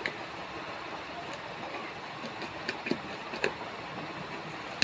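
Scissors cutting and poking into the packing tape of a cardboard parcel: a handful of short, sharp clicks and scrapes over a steady background hiss.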